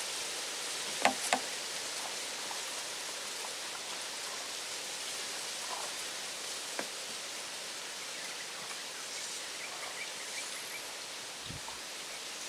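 Steady outdoor hiss of open-air background noise, with two sharp clicks close together about a second in, a single click near seven seconds, and a faint run of quick high chirps near ten seconds.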